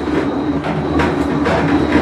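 Whirlpool Cabrio top-load washing machine running with a loud, steady rumble and repeated clatter, the noise of a bad bearing.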